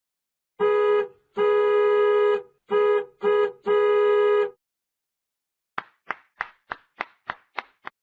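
Comedy sound effect: a reedy, organ-like electronic tone sounded five times at one pitch in a short, long, short, short, long pattern. After a pause of about a second, eight quick short notes follow, about a quarter second apart.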